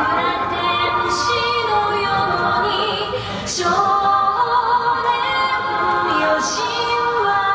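Wrestlers' entrance music: a song with a singing voice holding long notes over the accompaniment.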